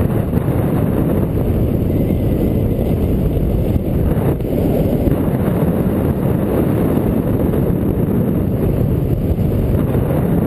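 Wind noise from the airflow of paraglider flight buffeting the camera microphone: a steady, loud low rush.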